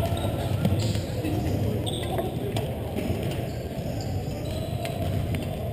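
Badminton rally on a hardwood gym court: a few sharp clicks of rackets striking the shuttlecock, with footsteps on the court, over a steady low background noise.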